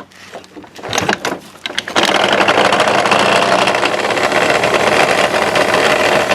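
Honda Dio 27's small two-stroke engine being cranked with a few clicks and knocks, then catching about two seconds in and running steadily. The engine has been brought in for a knock whose cause is not yet known.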